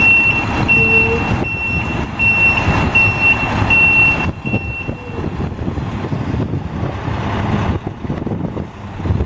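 A 2000 Volvo front-loader garbage truck's diesel engine running as it reverses. Its backup alarm beeps about twice a second and stops about five seconds in, and the engine rumble carries on.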